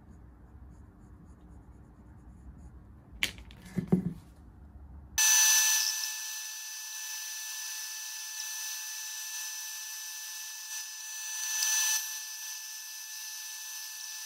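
A few light knocks of wood being handled, then from about five seconds in a bandsaw runs, cutting through a thick wood block with a steady whine that swells briefly near the end.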